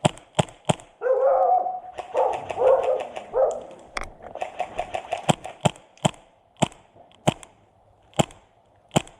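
Airsoft guns firing: sharp snapping shots, some in quick automatic runs and others singly about every half second to a second. A pitched, voice-like call sounds between about one and three and a half seconds in.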